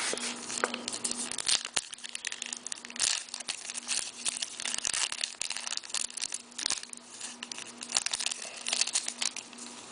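Hockey card pack wrapper being torn open and crinkled by hand, an irregular run of rustles and crackles with sharp clicks.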